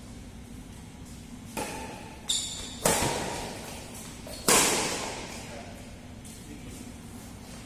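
Badminton rackets hitting a shuttlecock in a doubles rally: four sharp hits over about three seconds, the last two loudest, each echoing in the hall.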